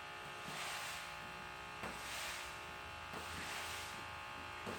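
A faint, steady electrical buzz with many overtones, with slight swells of hiss about every second and a half.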